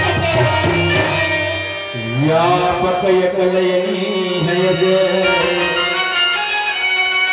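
Chhattisgarhi ramdhuni devotional music: singing with tabla and melodic accompaniment. About two seconds in, a held note slides upward and then sustains.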